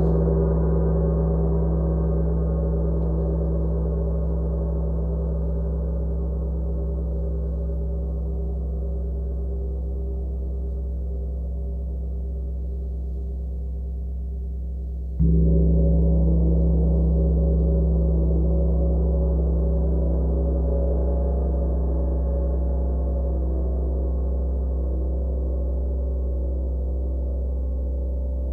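36-inch Sun Gong ringing with a deep low hum and many steady overtones, slowly fading. Struck once with a felt mallet about halfway through, it swells back up and rings on.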